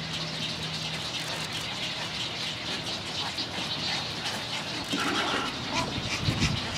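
Busy chatter of many nesting wading birds calling at a bird rookery, with a louder, deeper sound from about five seconds in.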